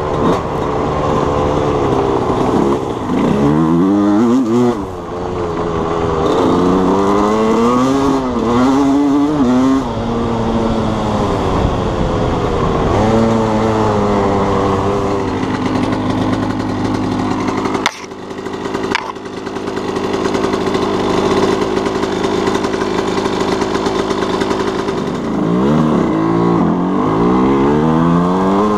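A 1987 Suzuki RM125's two-stroke single engine being ridden hard, revving up and falling off again and again as the rider works the throttle and gears, with a steadier stretch in the middle and a sudden brief drop about two-thirds of the way through. It runs with a new float needle fitted; the rider thinks the carburettor still wants minor adjusting, probably the main needle.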